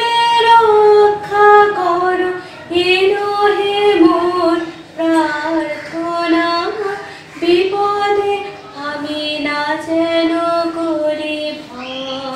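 A single voice singing a slow melody, holding long notes that step up and down in pitch.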